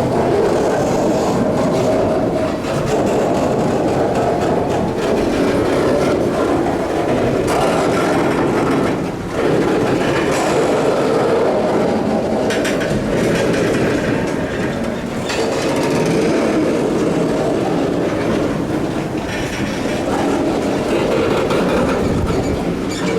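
Canadian Pacific freight train rolling slowly past, its railroad cars clattering steadily on the track with irregular wheel clacks.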